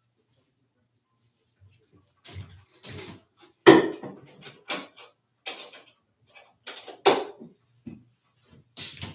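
Kitchen utensils and dishes clattering as they are moved about on a counter: a string of irregular knocks and clinks starting about two seconds in, loudest a little under four seconds in and again about seven seconds in.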